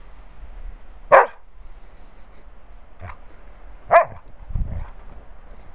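Bernese mountain dog giving two short barks about three seconds apart, with a fainter bark between them. A low dull thump follows just after the second bark.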